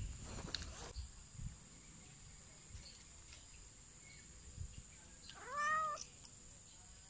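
A kitten meows once, a single call that rises and then falls, about five seconds in. Before it come a few faint scrapes and taps of its claws on tree bark.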